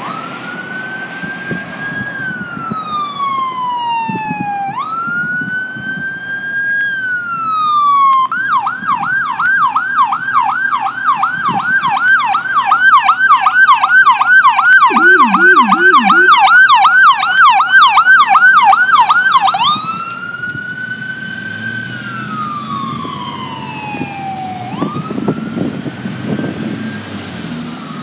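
Ambulance electronic siren: a slow rising-and-falling wail that switches about eight seconds in to a fast, loud yelp as the ambulance passes close, then goes back to the wail as it drives away. A few quick low-pitched sweeps sound briefly partway through the yelp.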